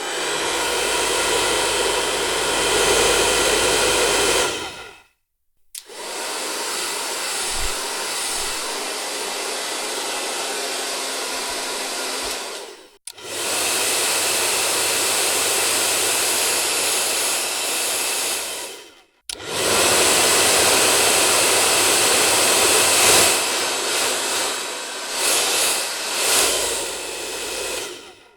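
Hair dryer running: a loud, steady rush of air with a faint whine. It stops and starts again three times with short silences between, and in the last stretch the level swells and dips.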